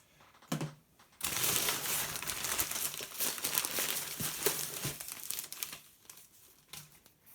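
Packing material (paper or plastic wrapping) crinkling as it is handled, for about four seconds after a short click near the start.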